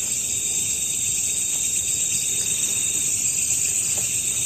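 Crickets and other night insects chirping in a steady, high-pitched chorus that keeps on without a break.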